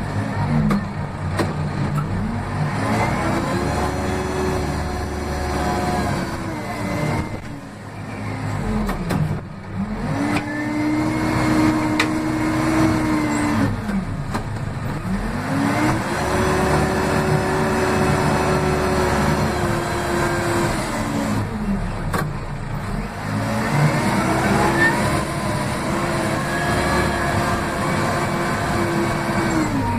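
Case 580M backhoe loader's four-cylinder diesel engine, heard from the cab by the throttle, revved up from idle four times. Each time it holds high and roaring loudly for several seconds before dropping back.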